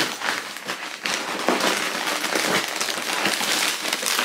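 Packaging crinkling and rustling continuously as wrapped clothing is pulled out of a shipping box by hand.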